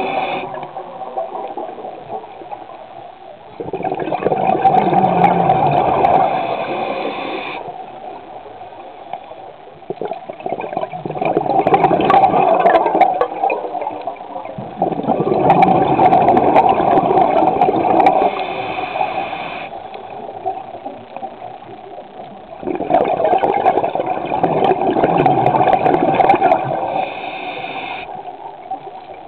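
Scuba diver's regulator breathing, recorded underwater: slow breath cycles of bubbling exhalations, about four loud stretches of several seconds each with quieter pauses between.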